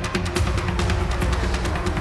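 Background soundtrack music with heavy bass and fast percussion hits.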